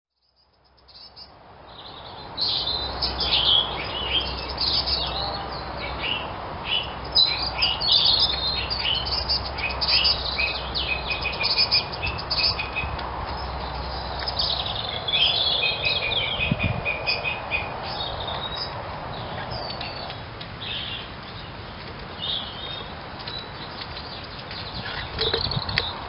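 Several wild songbirds singing and chirping at once, a busy overlapping mix of short chirps and trills. It fades in over the first couple of seconds, and a faint low hum runs under it for about the first half.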